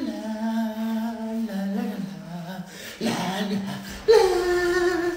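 A man's voice singing a slow tune in long held notes, with a short break near the middle; the last note, about four seconds in, is higher and the loudest.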